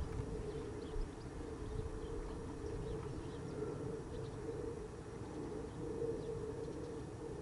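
Outdoor rural ambience: a steady low drone with faint, short small-bird chirps scattered above it.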